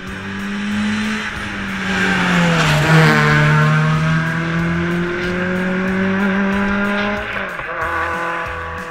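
Ford Fiesta ST150 rally car's four-cylinder engine passing at stage speed. The engine note drops as the car goes by about three seconds in, then climbs steadily as it accelerates away before cutting off sharply near the end.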